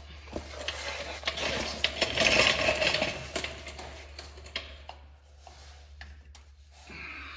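Hand tools and loose bolts clinking and rattling against metal, with scraping, as a mechanic moves out from under a car; the clatter is busiest around two to three seconds in and thins out after, over a steady low hum.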